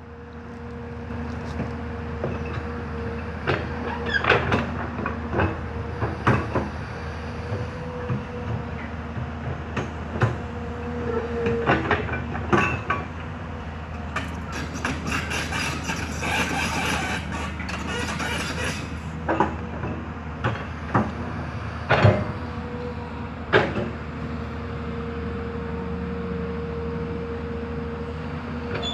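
Hyundai HX210S hydraulic excavator working: its diesel engine runs steadily, with frequent sharp metallic knocks and clanks scattered through the sound.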